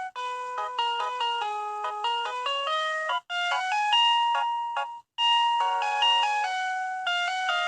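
Electronic school bell chime playing a melody of clear, bell-like notes. The tune cuts off abruptly twice, about three and five seconds in, and starts again each time.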